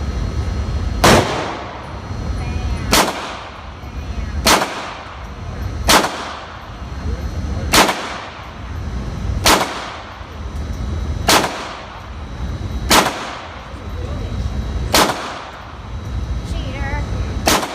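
Ruger Mark III Hunter .22 LR semi-automatic pistol fired ten times at a slow, steady pace, about one shot every one and a half to two seconds, each shot a sharp crack with a short ring-out. A steady low rumble runs underneath.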